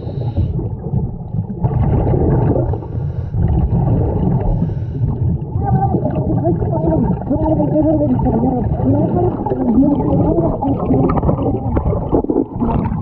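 Muffled underwater sound as picked up by a submerged camera: a scuba diver's regulator breathing and exhaust bubbles rumbling throughout. From about six seconds in, a wavering pitched sound rises and falls over it.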